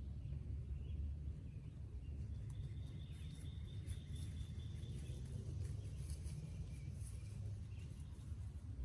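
Rural outdoor ambience under a steady low rumble, with a bird giving a rapid high-pitched trill for a couple of seconds from about two and a half seconds in, and faint high chirps and ticks around it.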